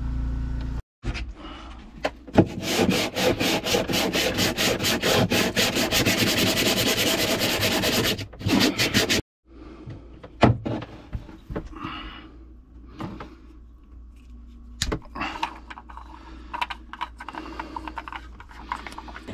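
Rapid, even rasping strokes for about seven seconds, cutting off suddenly, followed by scattered light knocks and handling sounds.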